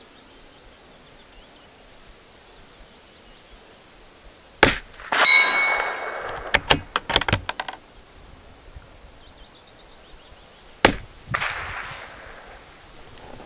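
Suppressed .22 LR bolt-action rifle firing Remington Thunderbolt rounds: a sharp, muted shot about a third of the way in, followed by a ringing metallic clang from a steel plate being hit, then a few light clicks of the bolt being worked. A second suppressed shot comes near the end.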